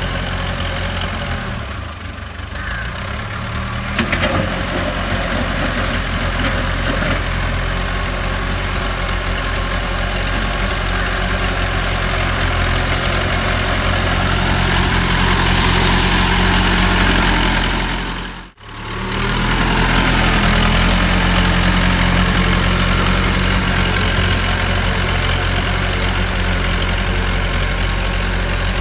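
JCB 3CX backhoe loader's diesel engine running steadily as the machine works a dirt road with its front bucket, with a single sharp knock about four seconds in. The sound grows louder and harsher for a few seconds past the middle, then drops out for an instant before the engine carries on.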